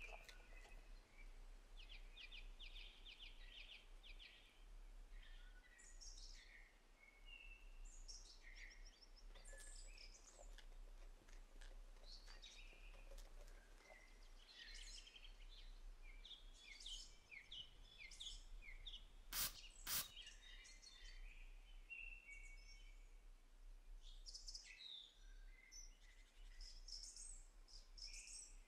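Faint songbirds chirping and singing on and off, many short, varied high notes. Two sharp clicks close together about two-thirds of the way through.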